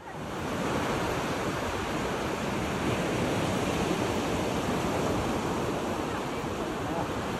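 Small sea waves breaking and washing onto the shore: a steady rush of surf that fades in at the start.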